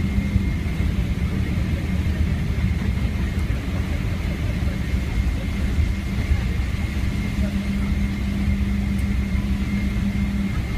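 Airliner cabin noise on the runway at speed, most likely the landing roll: a steady, loud low rumble with a thin, steady high whine above it.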